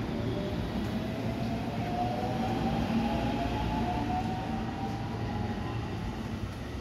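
JR West 223 series electric multiple unit pulling out past the platform: a whine from its traction motors rising in pitch as it picks up speed, over the steady rumble of wheels on rail. The sound eases a little near the end as the last car goes by.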